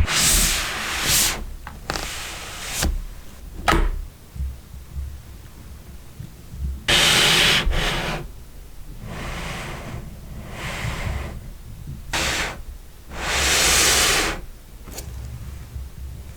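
Packaging being handled while a product box is opened: a series of rubbing, sliding swishes of different lengths, with a few short knocks.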